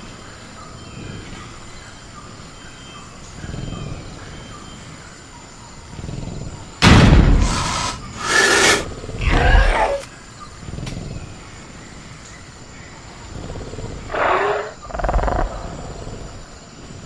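Sound-designed velociraptor vocalizing: low growls, then a sudden loud roar about seven seconds in, followed closely by two more snarling calls, and two shorter calls near the end. A steady high cricket chirr runs underneath.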